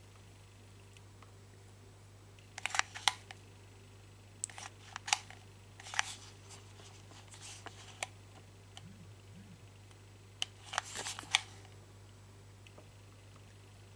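Hot glue gun trigger clicking in several short clusters, squeezed again and again while the gun is still heating and the glue is not yet flowing out.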